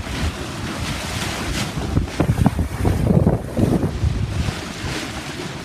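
Wind buffeting the microphone over water rushing and splashing against the hull of a sailboat under way in choppy water, with stronger gusts about halfway through.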